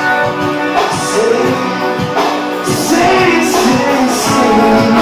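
A live band playing a song, with a singer, electric guitars and drums, heard from the lounge floor; it grows louder about three seconds in.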